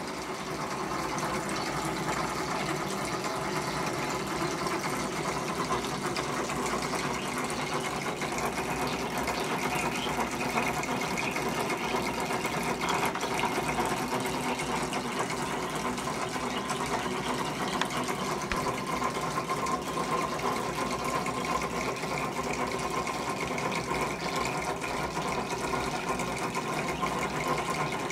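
Nitinol memory-spring heat engine running steadily on hot and cold water: its pulleys whir and the looped spring splashes and sprays water as it turns, a continuous fast fluttering whir with splashing.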